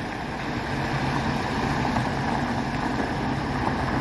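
Diesel engine of a semi tractor running steadily at low speed as it pulls a flatbed trailer loaded with railroad ties.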